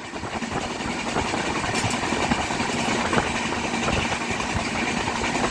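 Passenger train running along the track, its wheels clattering on the rails under a steady rushing noise, with a faint steady hum.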